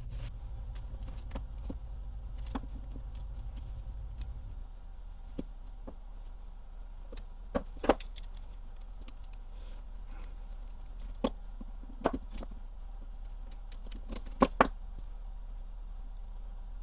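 Small metal parts and hand tools clicking and clinking on a hard work surface, a handful of sharp ticks and knocks with a few double clicks, over a steady low hum that drops about four seconds in.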